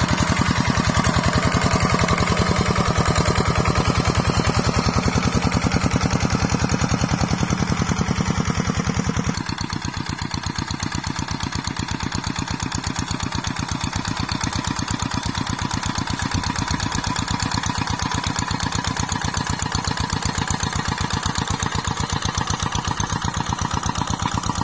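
Single-cylinder diesel engine of a Kubota two-wheel walking tractor running steadily while it pulls a plough through the soil, a rapid, even thumping of firing strokes. About nine seconds in it becomes a little quieter and less bassy.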